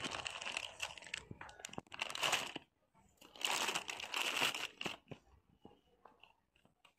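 Plastic packaging crinkling as packs of hanging dehumidifier bags in clear plastic wrap are handled and dropped into a wire shopping cart. It comes in two long stretches, then a few light clicks and taps near the end.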